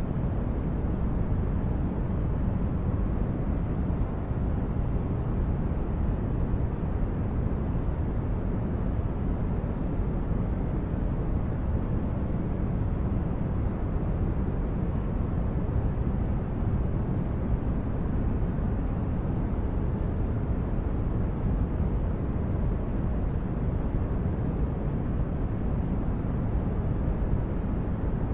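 Synthesized sci-fi spaceship corridor ambience: a steady, deep brown-noise rumble that never changes, heavy in the low end with little hiss above.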